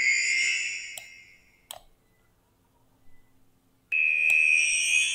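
A music loop raised in pitch by a pitch-shifter effect, sounding shrill and high. It plays a bright note that fades over about a second and a half, with a few faint clicks, then starts again near the end.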